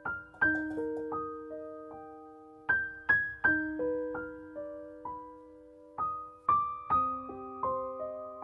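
Background piano music: a slow, gentle melody of single notes, each struck and left to ring out.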